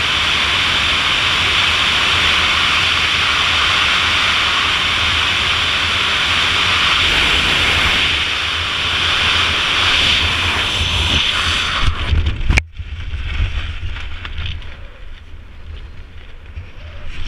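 Loud, steady wind rush over a wingsuit flyer's helmet-mounted action camera in fast freefall flight. About twelve and a half seconds in there is a sharp snap, and the wind drops to a much quieter, gusty rustle, as when the parachute opens and the flyer slows down.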